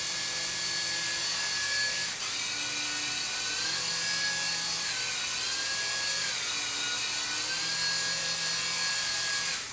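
Small propeller motors of a light-up levitating sphere toy whirring in a steady high buzz, the pitch shifting down and up several times as the motor speed changes.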